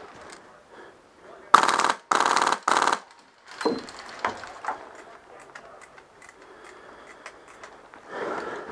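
Polar Star HPA-powered MP5 airsoft gun firing three rapid full-auto bursts in quick succession, starting about a second and a half in, each burst under a second long.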